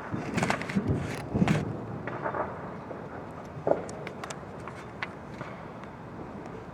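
Fireworks popping and crackling: a quick cluster of sharp bangs in the first second and a half, then scattered faint crackles with one louder pop about halfway through.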